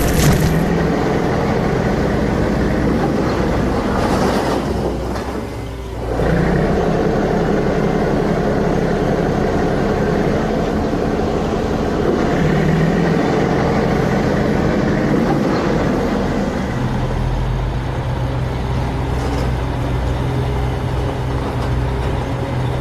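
Heavy construction machinery engine running steadily. It dips briefly about five seconds in, then settles into a lower, steadier hum about two-thirds of the way through.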